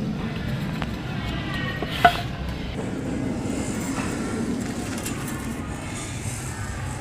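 A steel tool handled on an aerated lightweight concrete block, with one sharp knock about two seconds in and a light scraping hiss after it, over a steady low background rumble.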